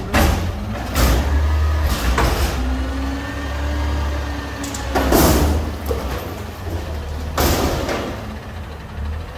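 Front-loader garbage truck's engine running under load as its hydraulic forks lift a dumpster up over the cab, with about five short, loud bursts of noise from the truck and dumpster along the way.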